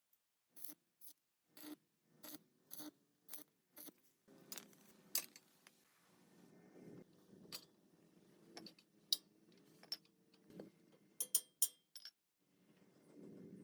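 Hand work on metal parts: a run of sharp clicks and taps, about two or three a second, then a low scraping rumble with scattered clicks and a quick cluster of clicks near the end.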